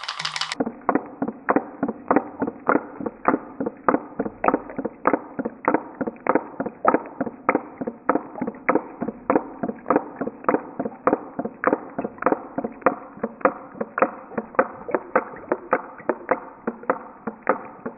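Putt-putt (pop-pop) steam boat running: its candle-heated aluminium pouch boiler flashes water to steam over and over, giving a steady putt-putt of sharp pops at about three a second.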